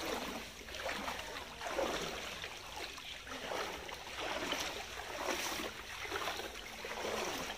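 Feet wading through floodwater, a swish and slosh of water with each stride, about once a second.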